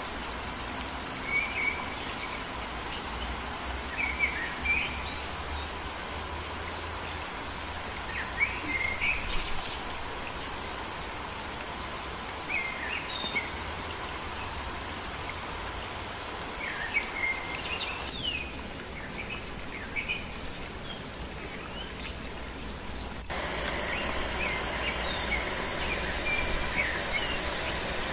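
Forest ambience: short bird chirps every few seconds over a steady high insect drone and a constant hiss. The background steps up louder suddenly about three quarters of the way through.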